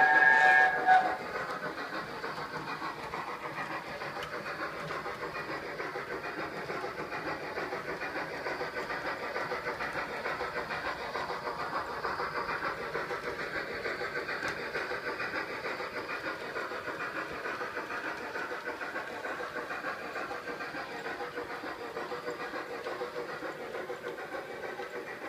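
An OO gauge model A4 steam locomotive's Zimo sound decoder plays a steam whistle through the model's small speaker, ending about a second in. It then gives a steady steam-locomotive running sound, with the model train running on its track.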